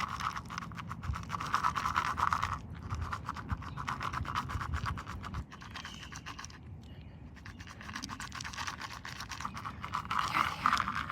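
Dry food rattling in a small cup shaken rapidly, used to call crows in to feed. It runs in two spells with a lull of a couple of seconds after about five and a half seconds.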